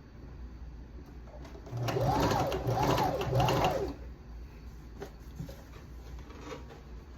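Janome sewing machine stitching a hair weft onto a wig cap in a burst of about two seconds, its motor speeding up and slowing three times in a row, then stopping; a few faint clicks follow.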